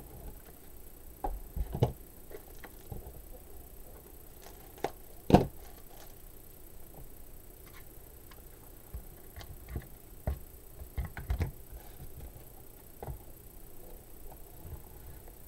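Craft supplies being handled on a cutting mat: scattered knocks and clicks as scissors, ribbon spools and a plastic ruler are moved and set down, with light ribbon rustling. The loudest is a single sharp knock about five seconds in.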